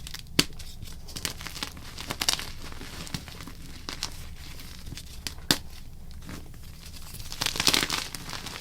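Blocks of gym chalk being crushed and crumbled, a run of dry crunches and crackles with two sharp snaps, one about half a second in and one about five and a half seconds in, and a denser burst of crumbling near the end.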